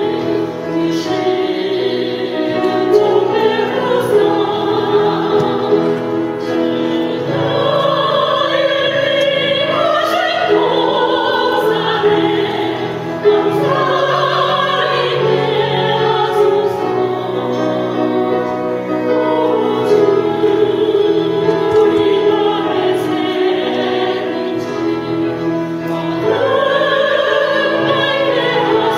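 A church praise team singing a hymn together in Korean, in long, held notes over steady accompaniment.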